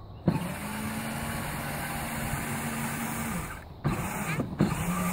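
Pink battery-powered ride-on toy Mustang driving over grass: its electric drive motors hum steadily with a rattling wash of noise. It starts with a click about a third of a second in, stops for about a second past the middle, then starts again near the end.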